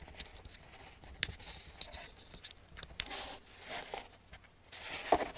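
Small plastic clicks and scraping as fingers press and fit together the plastic case of a camera battery pack around a new lithium-ion cell. A few sharp ticks are scattered throughout, with a louder rustle near the end.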